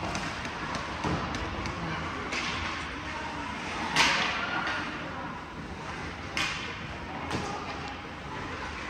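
Ice hockey play in an arena: skates scraping the ice and sticks clacking on the puck, with several sharp hits and a loud one about four seconds in.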